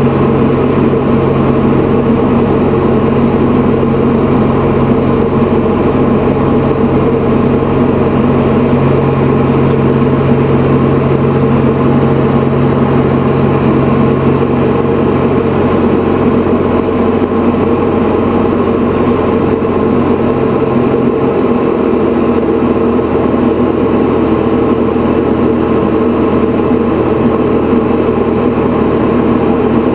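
Diamond DA40 single-engine propeller plane in flight, its engine and propeller making a loud, steady drone inside the cabin. Partway through, the deepest tones of the drone shift.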